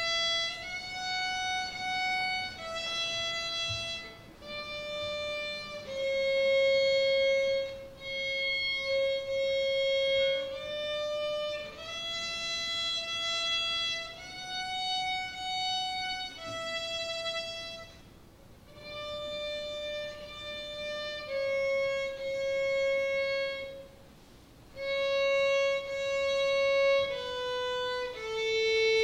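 Solo violin playing a slow melody of held single notes, one after another and stepping up and down in pitch, with short breaks between phrases about 18 and 24 seconds in.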